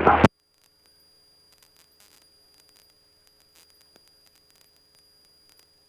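Near silence on the radio audio after a transmission cuts off. Only faint scattered static clicks and a faint steady high tone remain.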